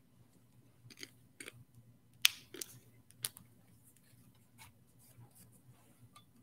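A few scattered light clicks and taps from the chalice and paten being handled at the altar during the priest's communion, the loudest a little past two seconds in. A low steady hum runs underneath.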